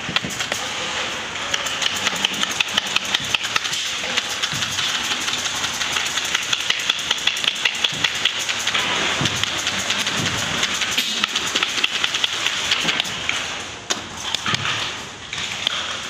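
Scissors snipping repeatedly through a recliner's upholstery fabric to cut out a hole, about three sharp cuts a second, pausing briefly near the end, over a steady machinery hum.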